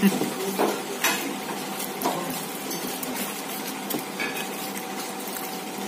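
Restaurant table clatter: plates and cutlery clinking now and then, with a faint steady hum underneath.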